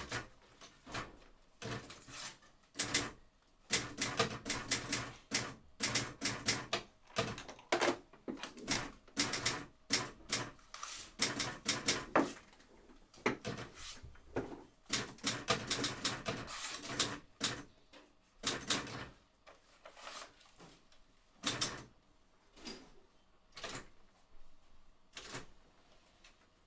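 Sharp clicks and taps in quick, irregular runs, thinning out to a few single clicks in the last third.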